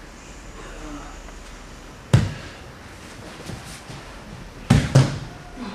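Aikido breakfalls on the mats: three sharp thuds of bodies and hands slapping down, one about two seconds in and two in quick succession near the end.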